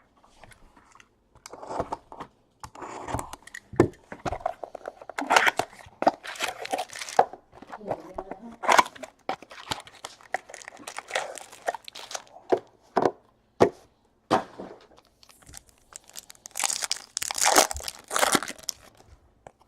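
Foil trading-card pack wrappers being torn open and crumpled, with cards handled: irregular crinkling and tearing.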